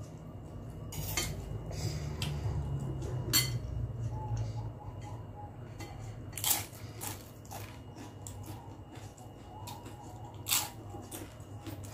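Close-miked eating: noodles being chewed, with a few sharp clicks, then crunching bites of a fried wonton cracker (kerupuk pangsit) from about six seconds in.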